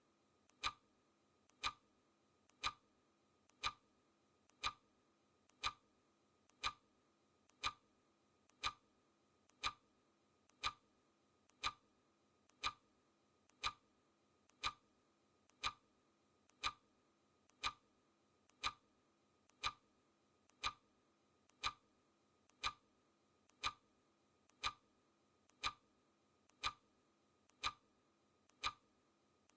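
Countdown timer's clock-tick sound effect, one sharp tick every second in a steady rhythm, each tick just after a faint lighter click.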